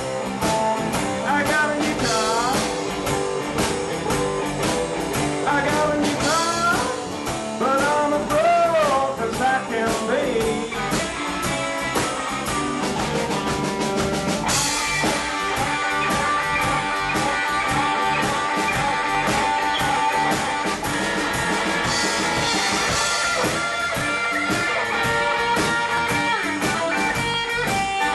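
Live blues band playing an instrumental break: an electric guitar lead with bent notes over a steady drum kit.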